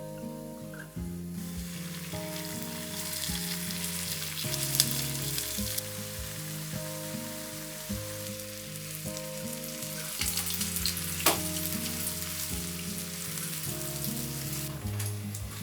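Food frying in hot oil: a steady sizzle that starts about a second in, with a couple of sharp clicks, over soft instrumental background music.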